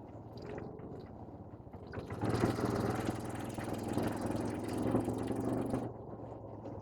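ATV quad bike engines running, with a steady low hum that swells about two seconds in into a louder engine sound with a rushing noise, then drops back just before six seconds.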